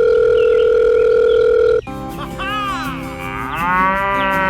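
A single loud steady tone for about two seconds that cuts off abruptly, followed by a pitched sound sliding up and down over background music with held notes.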